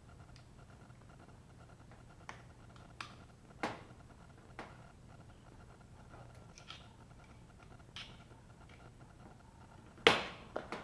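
Flat screwdriver prying at a riveted metal cover on a gas water heater control valve: scattered light metal clicks and scrapes, then a loud metal clack near the end as the cover comes loose, exposing the diaphragm.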